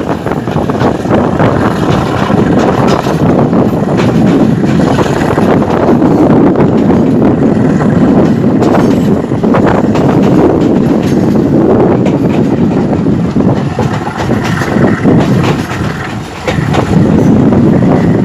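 Express passenger train running along the track: a loud, steady rumble with repeated clicks of the wheels over the rails, and a brief dip in loudness near the end.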